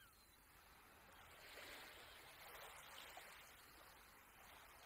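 Near silence, with a faint wash of gently lapping water that swells and fades.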